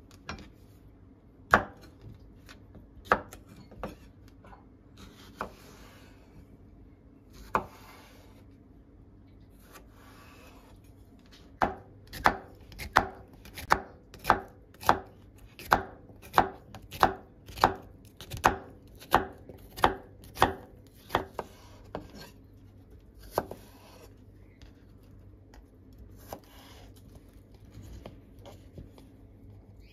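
Chef's knife chopping cucumber on a wooden cutting board: a few scattered knocks, then a steady run of chops about two a second for around ten seconds, then scattered knocks again.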